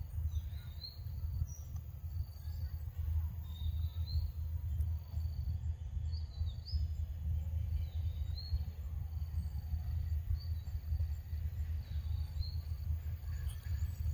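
Steady low wind rumble on the microphone, with a bird calling short rising chirps every second or two in the forest background.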